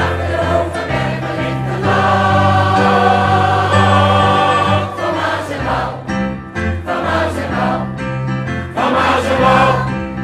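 Choir singing a song in sustained, chord-by-chord phrases.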